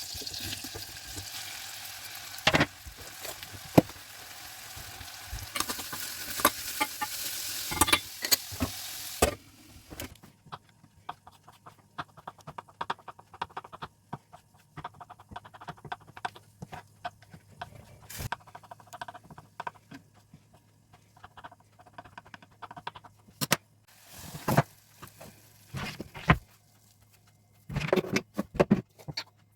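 Pirozhki sizzling as they fry in oil, with sharp clicks of a utensil against the pan. The sizzle stops abruptly about nine seconds in, leaving scattered light clicks and knocks.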